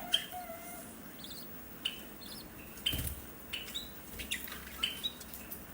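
Small cage birds giving many short, high chirps scattered through, with a single knock about three seconds in.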